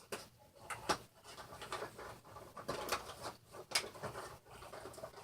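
Handling of a cardboard and plastic Funko Pop box: irregular rustling with scattered light taps and clicks.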